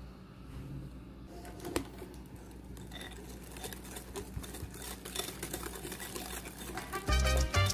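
Wire whisk beating cream in a glass bowl: fast, irregular clicking and scraping of the wires against the glass as milk powder is mixed in. Loud, upbeat Latin-style music comes in near the end.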